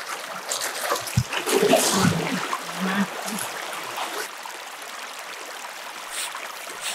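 Shallow river water running over stones in a steady hiss, with brief voices and splashes in the first three seconds.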